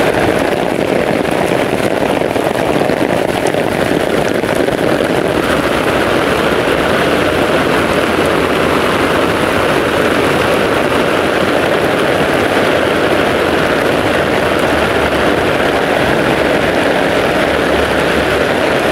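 Heavy rain pouring onto pavement and roads, a loud, steady hiss, with a low rumble joining in the second half.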